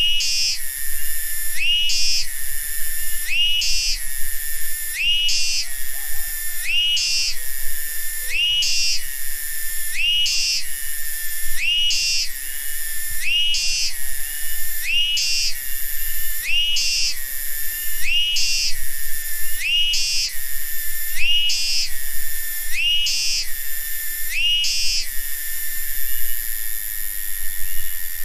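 Cicada singing a loud, high-pitched call that swells and rises in pitch about once a second in an even rhythm, then settles into a steady unbroken drone for the last few seconds.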